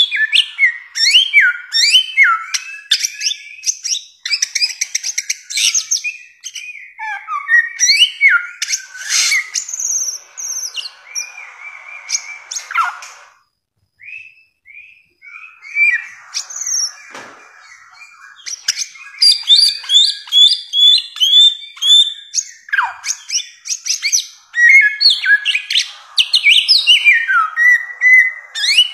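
Bare-throated whistler (samyong) singing a long, varied song of loud whistled notes and quick slurred phrases, with a short pause about halfway through.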